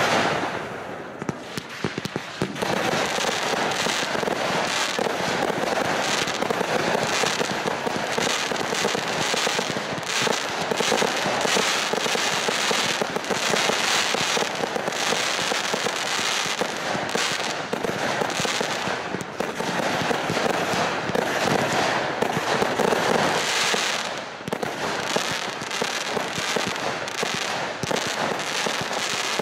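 A fireworks display firing continuously: a dense run of bangs and crackling from bursting aerial shells. It eases briefly near the start and again about four-fifths of the way through.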